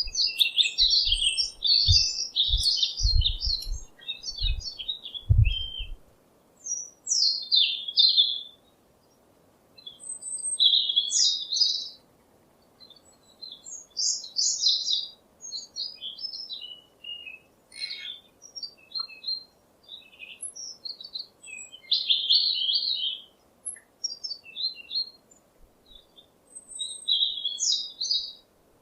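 Small songbirds chirping and singing in short phrases of quick high notes, one after another with brief pauses between them. A few low thumps sound during the first six seconds.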